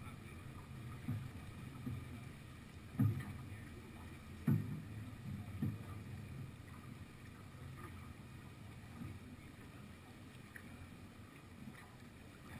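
Water rushing and lapping along a Beneteau sailing yacht's hull as it sails, a steady low wash, with a few dull knocks in the first half.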